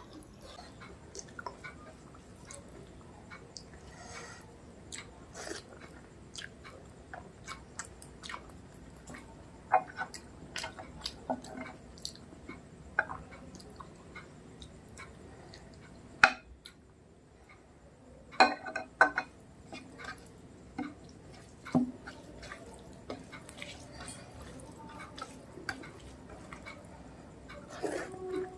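Close-up chewing and mouth sounds of a person eating rice with mutton curry: soft wet clicks and smacks coming irregularly, with a short quiet gap about sixteen seconds in.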